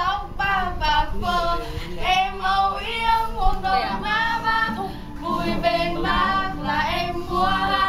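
A small group of young, mostly female voices singing a song together, unaccompanied.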